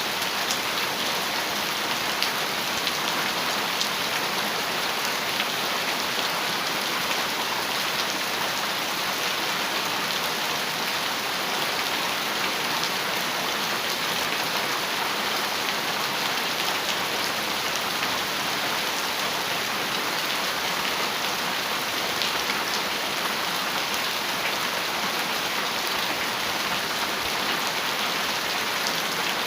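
Heavy rain falling steadily on a metal roof, a dense even patter of drops with no thunder.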